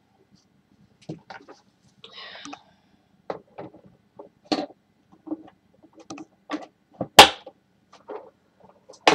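Plastic parts of a Hoover SteamVac Deluxe carpet cleaner being handled and fitted onto the back of the machine: a run of scattered clicks and knocks, the loudest a sharp knock a little after seven seconds and another near the end.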